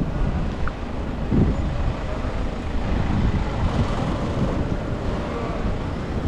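Wind rush and road noise picked up by a camera on a moving bicycle, with city traffic around it: a steady low rumble with a brief thump about a second and a half in.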